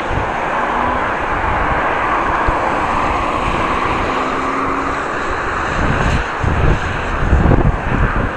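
Wind buffeting an action camera's microphone on a moving bicycle: a steady rushing noise, with heavier low rumbling gusts in the last couple of seconds.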